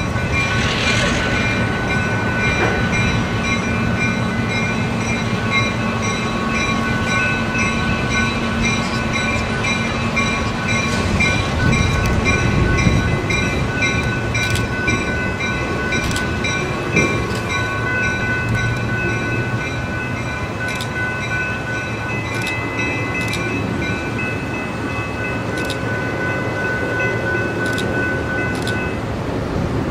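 Diesel locomotive running as it moves slowly along the track, its engine drone swelling about twelve seconds in. A bell rings over it again and again and stops shortly before the end.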